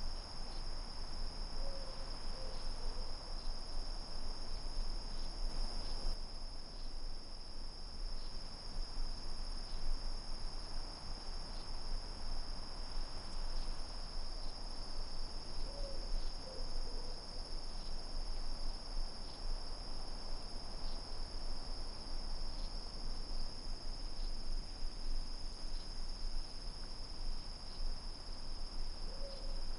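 Night insects, likely crickets, keep up a steady, unbroken high trilling. A short two-note hoot, the second note lower, comes three times, about every fourteen seconds.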